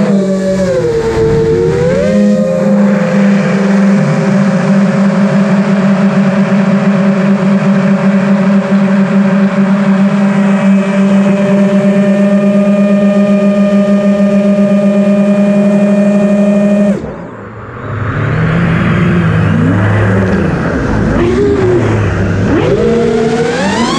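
Brushless motors of an FPV quadcopter spinning 5-inch Azure Power 5150 props on a 5S battery, heard through the onboard camera: a steady whine held for about fifteen seconds during a high climb. About seventeen seconds in the whine cuts off sharply as the throttle is dropped, then rises and falls in pitch as the throttle is blipped on the way down.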